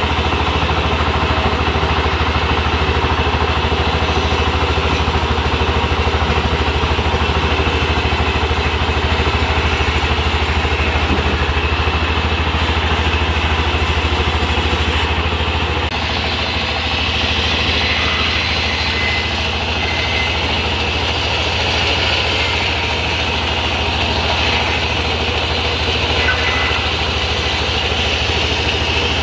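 Sawmill engine running steadily with a strong low hum; about halfway through, a higher hiss joins in over it.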